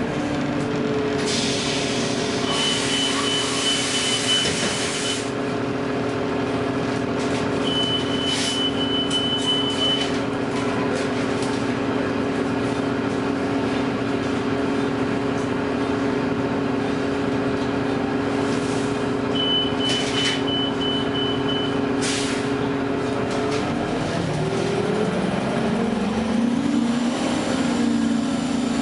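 Gillig hybrid transit bus with a Cummins ISB engine and Allison EP40 hybrid drive, running with a steady two-tone whine. Air hisses out several times, and three runs of rapid high electronic beeping sound, typical of the bus at a stop with its air system and warning beeper working. Near the end the whine drops and climbs again in pitch as the drive changes speed.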